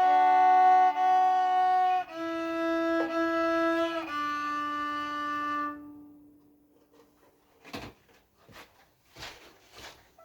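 Solo violin playing slow, sustained bowed notes, changing pitch a few times, then holding a long low final note that fades out about six seconds in. A few soft knocks follow near the end.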